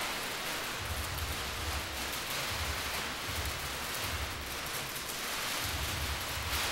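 Large sheets of white paper rustling and crinkling steadily as a person moves inside them, with irregular soft low thumps.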